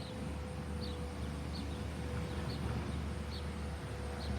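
Outdoor ambience with a steady low rumble and a thin, steady hum, and short high chirps recurring about once or twice a second.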